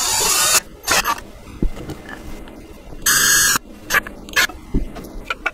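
Cordless drill driving bolts into metal inserts in the wooden rails, in short bursts: one at the start and another about three seconds in. Sharp clicks and knocks of handling fall in between.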